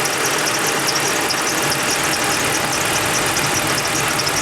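2009 Ram 1500 engine idling steadily with a fast, even ticking, warming up so the thermostat opens and air burps out of the freshly refilled cooling system.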